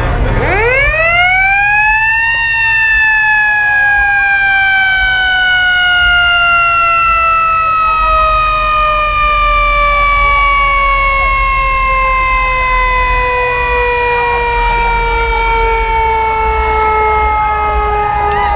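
Fire engine's mechanical siren winding up steeply over about two seconds, then slowly winding down in one long falling wail.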